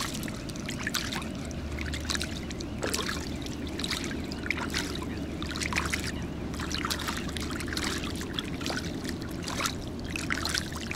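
Hands washing in shallow pond water at the bank: a continuous run of small splashes, sloshing and trickling as the hands are rubbed together and rinsed.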